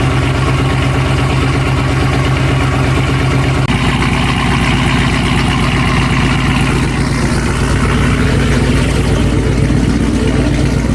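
Dodge Hellcat's supercharged 6.2-litre HEMI V8 idling steadily after a start-up, its low note shifting about four seconds in.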